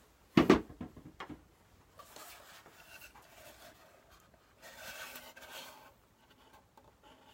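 A sharp knock about half a second in and two lighter taps just after, then rubbing and scraping as an old wooden cigar box is handled and its lid swung open.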